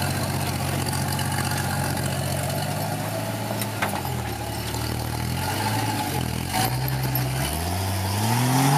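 Rock crawler's engine running at a low, even speed, then revving up and down as the vehicle climbs a steep rock slot, with a strong rise in revs near the end that drops off. A couple of sharp knocks come in the middle.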